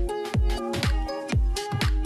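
Background electronic dance music with a steady kick drum about twice a second under short synth notes.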